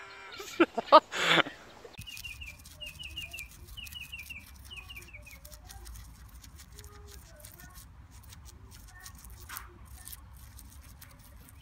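Two guinea pigs chewing a leaf: a stream of small crunching clicks, with a bird chirping in quick runs of three or four notes behind. In the first second and a half there are a few short, loud vocal sounds.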